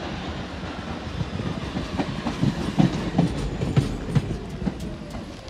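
R46 New York City Subway car running on the rails with a steady low rumble. Its wheels clatter irregularly over rail joints, loudest in the middle, and a faint tone slides down in pitch near the end.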